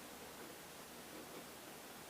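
Near silence: a faint steady hiss with a few very faint soft rustles.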